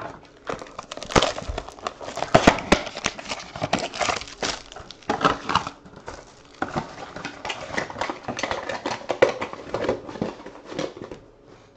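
Trading-card packaging being handled and opened: irregular crinkling of foil and plastic wrappers with clicks and light knocks against cardboard, the sharpest knocks about a second and two and a half seconds in.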